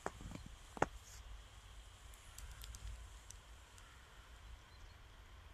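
Footsteps crunching in snow: a few steps in the first second, then only faint scattered ticks over a low rumble.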